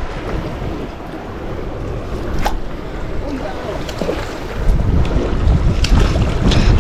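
Wind buffeting the microphone over open water, a gusty low rumble that grows louder about two-thirds of the way through, with a couple of sharp clicks.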